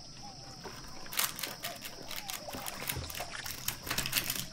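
Crisp, flaky baked crust of a spiral börek crackling as fingers press and break into it, with a run of quick crackles starting about a second in.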